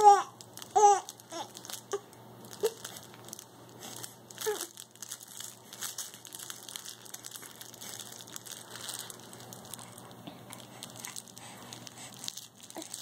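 Baby babbling, with a couple of loud squeals in the first second and a few short coos up to about four and a half seconds in, then soft crinkling and rustling as he grasps and mouths a small toy.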